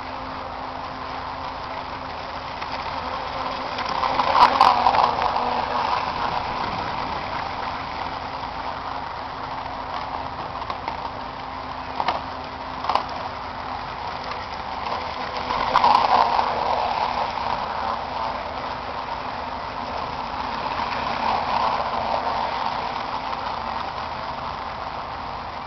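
Radio-controlled model boat running on open water, its motor and prop noise swelling as it passes close about four seconds in, again around sixteen seconds and more softly near twenty-two seconds. A couple of short sharp clicks sound around twelve seconds in.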